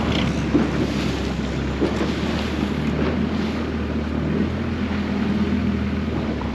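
Boat engine running steadily underway, with wind buffeting the microphone and water rushing past the hull.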